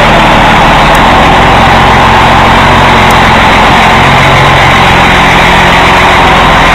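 Scania 113 truck's six-cylinder diesel engine running steadily at low speed as the loaded truck manoeuvres, loud and close.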